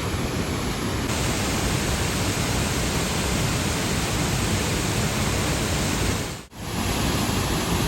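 Steady rushing roar of a waterfall, with a brief break about six and a half seconds in.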